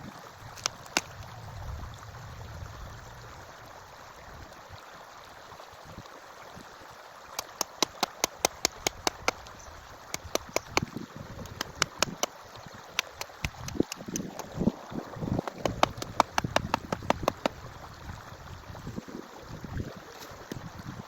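Forest stream flowing steadily. About a third of the way in comes a run of sharp knocks, about four a second at first and then irregular, with some dull thuds among them. The knocks stop a few seconds before the end.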